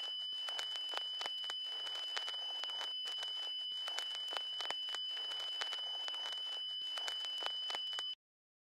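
Crackling static full of small clicks, with a steady high-pitched tone running through it, which cuts off abruptly into silence about eight seconds in.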